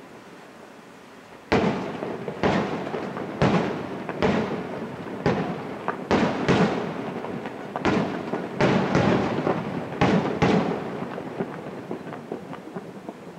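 Aerial firework shells bursting overhead in quick succession: about a dozen sharp bangs, starting about a second and a half in, each followed by a rolling echo that dies away near the end.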